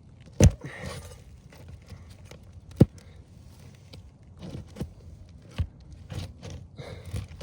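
A roof snake prying a roofing nail out from under an asphalt shingle: a string of sharp knocks and scrapes, the two loudest about half a second in and just before the three-second mark.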